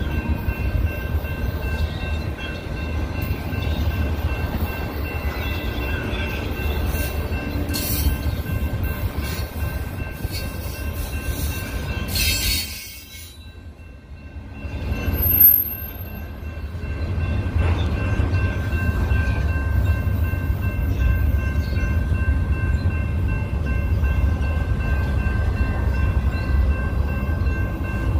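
Double-stack intermodal freight train rolling through a grade crossing: a steady low rumble of wheels on rail, with steady high ringing tones over it. Near the middle a sharp crack is followed by the rumble dropping away for about two seconds, then a brief high whistle, and the rumble returns.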